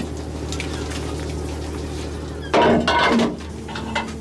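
Steady low drone of a fishing cutter's engine and winch machinery hauling in the trawl. About two and a half seconds in, loud metal clanking and clattering lasts under a second.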